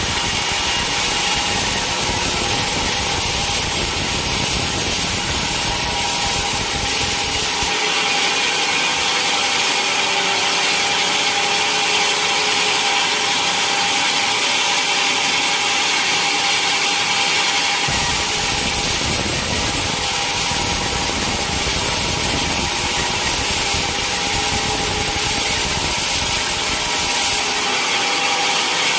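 Sawmill blade cutting steadily through a teak log, a continuous loud sawing noise with a steady tone under it. The low rumble drops away abruptly about 8 seconds in and returns about 18 seconds in.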